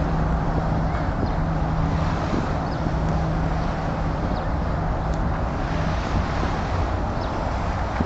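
Steady drone of road traffic crossing the suspension bridge overhead, with a constant low hum in it and wind noise on the microphone.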